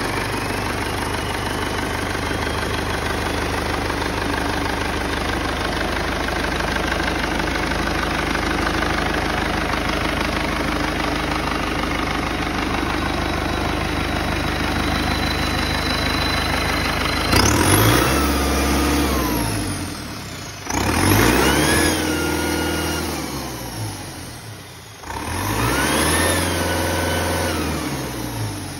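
Volvo FLC's Perkins Phaser diesel engine running steadily, then revved up three times, each rev climbing and dropping back to idle, with a high whine that rises and falls with the revs.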